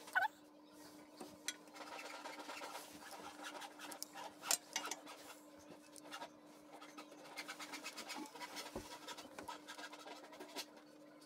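Faint scratching and small metal clicks as bolts are handled and threaded by hand into the strainer cover on the tractor's transmission housing, over a steady hum.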